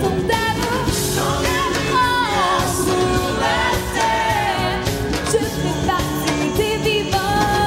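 A pop song sung with instrumental accompaniment, the sung melody gliding and bending over a steady beat.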